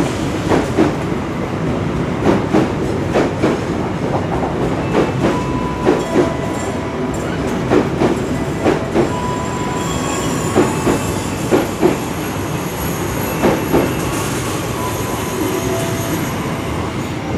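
Indonesian passenger coaches rolling past at low speed, their wheels clacking over rail joints in close pairs of beats, with thin high wheel squeals now and then. The last coach clears in the second half.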